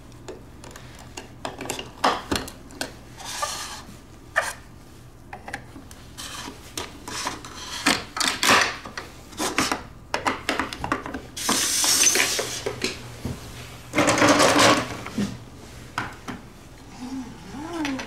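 Plastic LEGO bricks clicking and clattering as they are handled and pressed together, with two longer rattling stretches in the second half.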